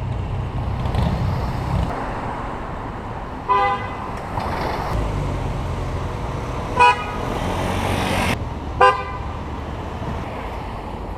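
Car horns sounding three short toots a few seconds apart, over the steady rumble of passing road traffic.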